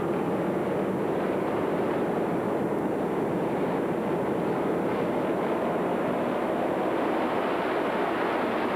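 A field of racing three-wheeler engines running together on the start line, a steady mixed drone with no single engine standing out.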